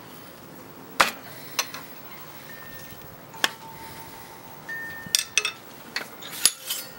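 Steel burnisher clicking against the edge of a thin steel scraper made from an old Japanese saw blade, while a hook is being turned on it: about nine sharp, irregular metallic clicks, a few of them leaving the blade ringing briefly.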